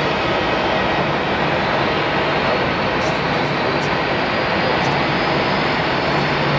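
Jet airliner engines running: a steady rushing noise with a faint high whine that rises slowly in pitch from about halfway.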